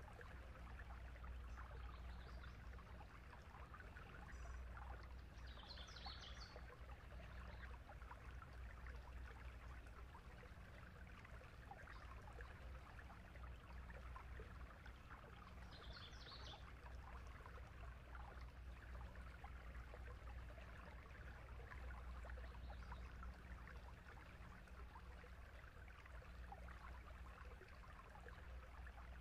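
Faint steady rushing noise over a low hum, with two brief high chirps about six and sixteen seconds in.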